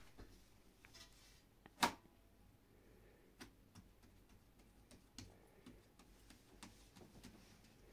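Quiet kitchen handling: faint scattered taps and clicks as hands press dough into a round metal pan, with one sharper knock about two seconds in.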